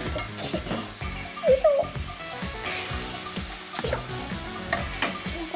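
A fried hamburger patty sizzling as it is lifted from the frying pan with a spatula and laid on aluminium foil. A few sharp clicks come in the second half, the strongest about four and five seconds in.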